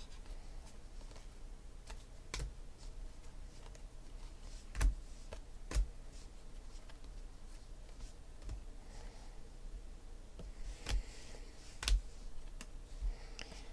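A stack of 2016 Panini Phoenix football cards being thumbed through by hand, one card at a time. It gives a few sharp clicks and snaps at irregular intervals, with faint rustling of the cards between them.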